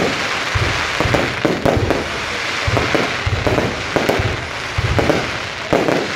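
Aerial fireworks going off in rapid succession: a dense, unbroken stream of bangs and crackling pops as shells launch and burst overhead.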